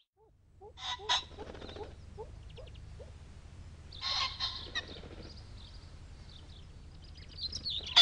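Common pheasant giving harsh, loud crowing calls in three bouts: about a second in, around four seconds in, and loudest at the very end.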